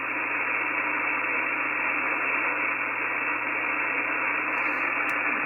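Steady hiss of band noise from an HF transceiver's receiver, listening on 17 metre single sideband between calls, with no reply audible. The hiss is cut off sharply above about 2.8 kHz by the sideband filter.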